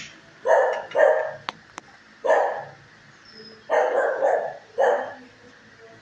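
A dog barking, about five barks with irregular gaps between them.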